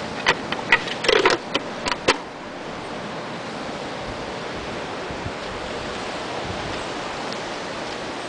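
A round, ribbed white plastic pool part being handled and lifted, with several sharp clicks and knocks in the first two seconds. Then a steady, even outdoor hiss.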